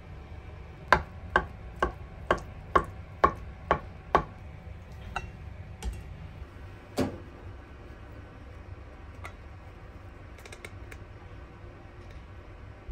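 Kitchen knife chopping boiled egg whites on a wooden cutting board: eight even strokes a little over two a second, followed by a few scattered knocks.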